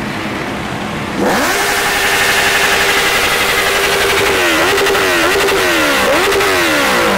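Motorcycle engine idling, then revved hard about a second in and held at high revs for about three seconds. It is then blipped up and down several times, the revs falling away near the end.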